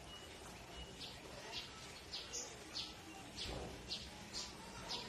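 Short, high chirps repeating about twice a second, like a small bird calling over and over, above a faint steady background hiss.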